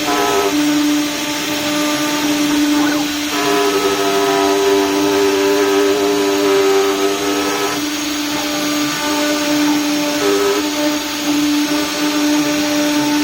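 CNC router running and cutting: a steady motor whine with a second set of tones that comes in about three seconds in and drops away near eight seconds as the load changes.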